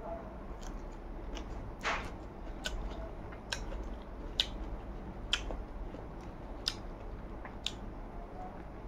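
Close-miked mouth sounds of a person eating rice by hand: wet chewing and lip-smacking, with short crisp clicks about once a second.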